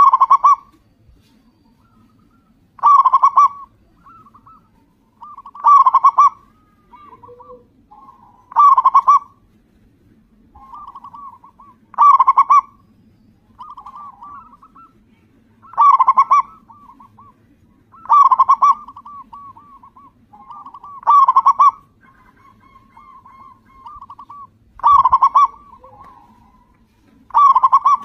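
Local zebra dove (perkutut) singing: about ten loud cooing phrases, one every three seconds or so, each followed by a softer rolling trill of coos.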